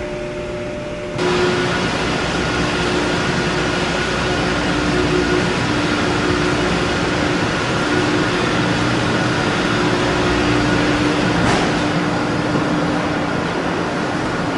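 Loud, steady machinery noise of a car ferry's vehicle deck and stairwell: the ship's ventilation fans and engines, with two steady hums running through it. The level jumps up about a second in, and there is a single knock near the end.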